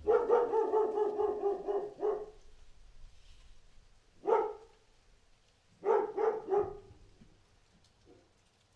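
Dog barking: a drawn-out, rapidly pulsing bark of about two seconds, then a single bark about four seconds in and a quick run of three barks around six seconds.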